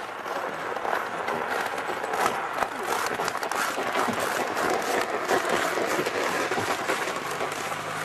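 C2-class narrow-gauge steam locomotive hissing and blowing off steam: a dense, crackling rush of noise with no clear beat. A low, steady engine hum comes in near the end.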